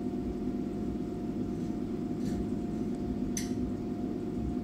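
500-watt short wave diathermy unit running with a steady electrical hum while its tuner knob is turned, with two faint clicks partway through.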